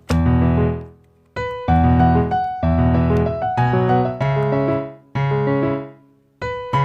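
Background piano music: chords struck in short phrases, each fading away, with brief pauses between them.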